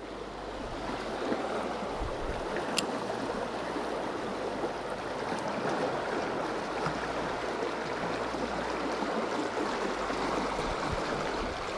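Steady rush of water pouring through a spillway into the churning outflow below, with a single light click about three seconds in.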